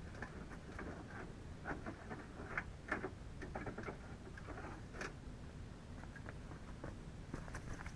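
Faint footsteps and scattered light knocks and clatter of someone moving about and handling things in a garage, over a low steady background.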